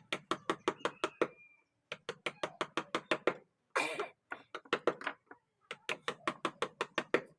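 Quick, even mallet taps on a carving chisel cutting a design into a wooden door, about eight taps a second in short runs with brief pauses. A short scraping hiss about four seconds in.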